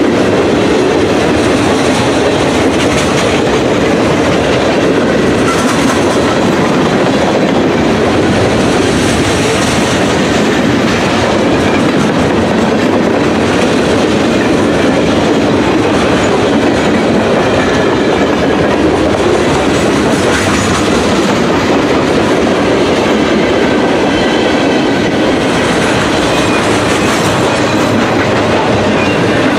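A long train of railroad cars rolling steadily past close by, its wheels clattering along the rails in a loud, even, unbroken noise.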